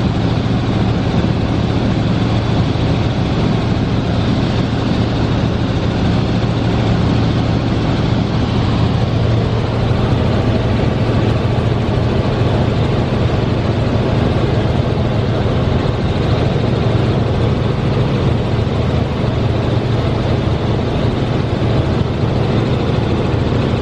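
Helicopter cabin noise in flight: the engine and rotors running as a loud, steady drone with a strong low hum that does not change.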